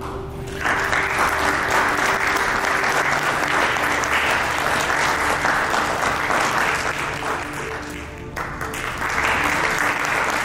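Audience applauding, dipping briefly about eight seconds in before picking up again, with background music playing underneath.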